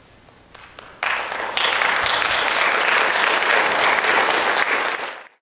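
Audience applauding: a few scattered claps, then about a second in full, steady applause that cuts off abruptly near the end.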